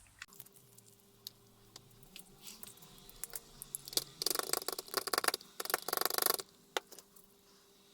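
Scattered light clicks and taps from handling a small steel wrench while cold bluing is applied, then two short bursts of brisk scrubbing, about four and five and a half seconds in.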